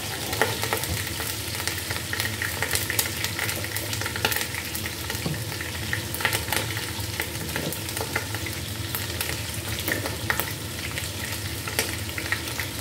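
Chicken pieces frying in oil in a pot: a steady sizzle with frequent small crackles and pops of spattering oil.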